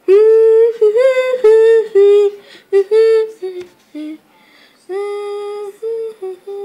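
A high voice singing a wordless tune in a run of short held notes. It is loudest for the first few seconds, breaks off briefly about four seconds in, then carries on more softly.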